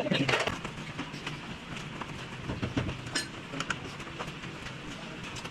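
Engine running steadily, with a few light clicks scattered through it.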